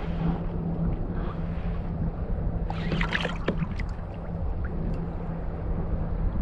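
Water lapping and slapping against a kayak hull with wind on the microphone, while a fish is being reeled in on a spinning rod. About three seconds in comes a brief scratchy rattle of clicks.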